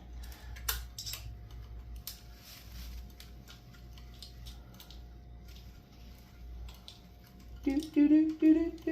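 Faint scattered clicks and rattles of hands working a plastic zip tie, over a thin steady whine. Near the end a pitched tune starts up.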